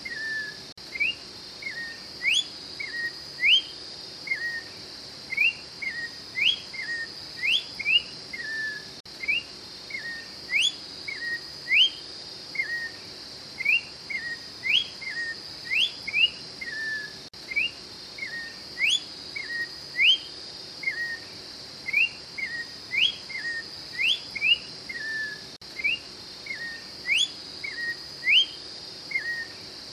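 Orange-backed troupial (Icterus croconotus) singing: phrases of clear whistles, quick upward-sweeping notes followed by a lower slurred note, repeated every couple of seconds. A steady high-pitched hiss runs underneath.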